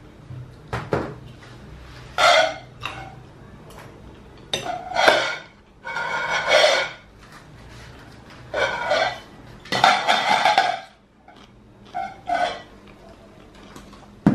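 A baby vocalizing in several short, loud bursts, with the odd clink of a glass pot lid knocked on the floor.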